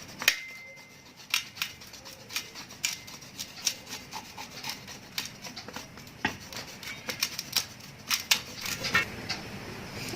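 A dark chocolate bar being scraped into shavings: irregular short scraping strokes with small clicks, several a second.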